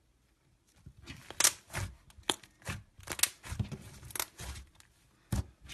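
Slime being squeezed and pulled by hand: irregular sticky pops and crackles with soft squelching thumps, starting about a second in.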